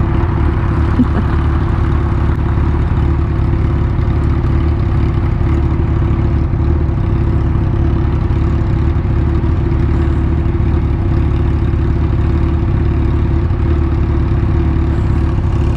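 Sport motorcycle engines idling steadily at a standstill: a Suzuki GSX-R600 and a Suzuki Hayabusa, both inline-fours, heard through a helmet-mounted microphone.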